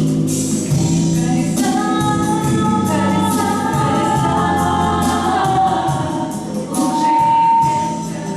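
Music: a song with several voices singing together over a steady percussive beat.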